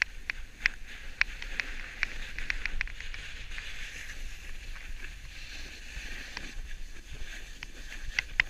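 Edges sliding and scraping over firm snow, heard up close by a camera on a moving rider: a steady hiss with many sharp ticks, thickest in the first three seconds and again near the end.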